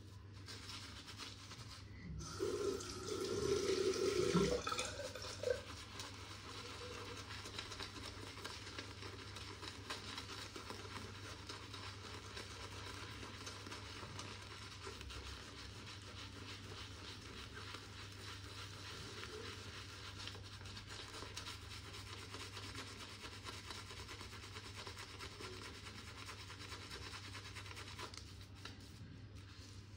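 Boti N3C shaving brush working shaving-soap lather on a wet face: a steady, soft brushing, with a louder burst of noise for a few seconds near the start.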